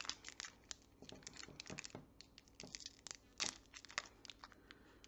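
Wrapper of an individually wrapped Lotte hard milk candy crinkling and crackling in short, irregular bursts as it is twisted and pulled open by hand.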